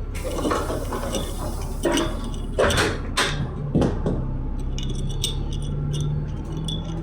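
Bus interior noise: a hiss of air at the start, a few knocks and rattles over the next couple of seconds, then a low steady engine hum from about three and a half seconds in.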